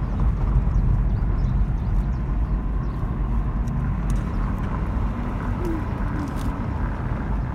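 Steady low rumble of a car driving along a road, heard inside the cabin: engine and tyre noise, with a few faint clicks.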